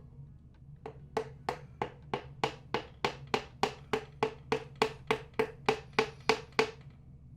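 A mallet tapping a piston down through a ring compressor into a BMW M50 engine's cylinder bore: about twenty even taps, three or four a second, getting louder, each with a faint ring.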